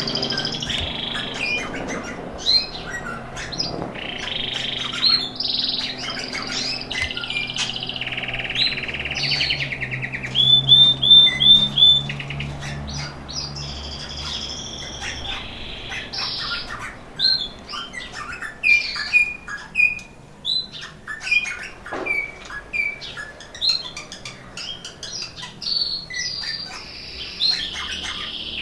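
Domestic canaries (red mosaic) singing and chirping, with a loud rolling trill of quickly repeated notes about ten seconds in. The song is typical of canaries coming into breeding condition.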